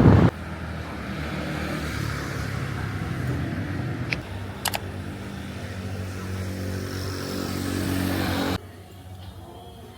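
Road traffic: a motor vehicle engine running steadily with street noise, and two sharp clicks about four to five seconds in. It cuts off suddenly near the end to a quieter background.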